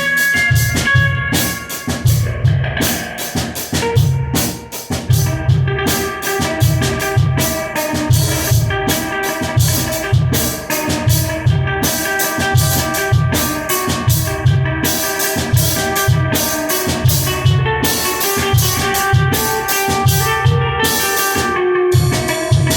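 Guitar and drum kit playing together in a rehearsal: kick and snare keep a steady beat under held guitar notes and chords.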